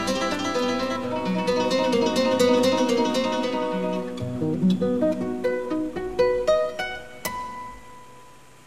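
Background music played on a plucked string instrument. The notes thin out to single plucks after about four seconds, and a last note dies away near the end.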